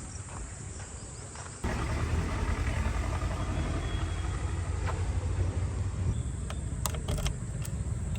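Heavy diesel machinery engine running steadily, coming in abruptly about a second and a half in after a quieter stretch, with a few sharp knocks near the end.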